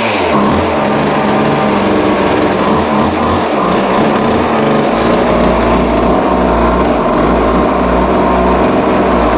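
Vintage Montgomery Ward 10-inch two-stroke chainsaw engine running loudly on its own, its speed wavering at first and then holding steadier. It is running very rich, as the owner notes.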